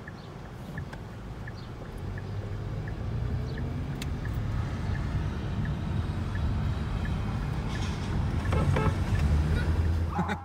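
Inside a car cabin: engine and road noise growing louder as the car pulls away and gathers speed, with a turn-signal indicator ticking about once every 0.7 seconds.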